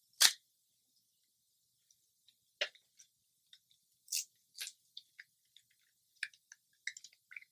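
Toy packaging being handled and worked open: scattered short crinkles and clicks with pauses between them, the loudest a sharp click just after the start and a cluster of small crackles near the end.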